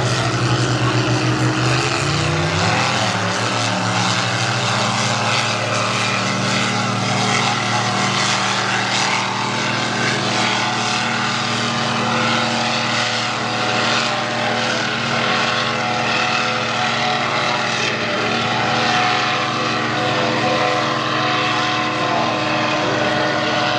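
Two high-horsepower racing boats running flat out side by side, a loud steady engine drone whose pitch shifts as they pass close about two seconds in, then holds as they run away.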